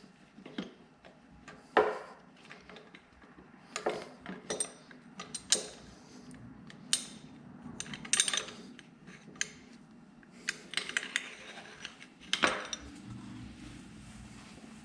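Metal hand tools and engine parts clinking and clanking as they are handled and set down: about a dozen sharp, separate metal knocks with gaps between them, the loudest near the start, in the middle and near the end.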